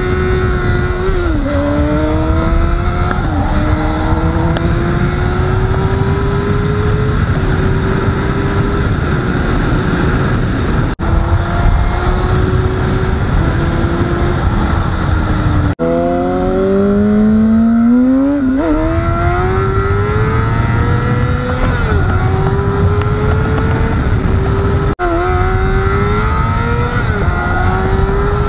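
Honda CBR600RR's inline-four engine pulling hard through the gears: the pitch climbs steadily, then drops at each upshift and climbs again, over a steady low rush. The sound breaks off sharply three times.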